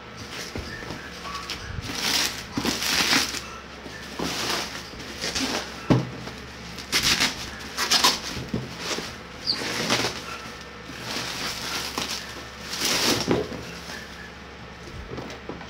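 Bubble wrap crinkling and rustling in bursts as it is pulled off a cardboard box, with a single knock about six seconds in.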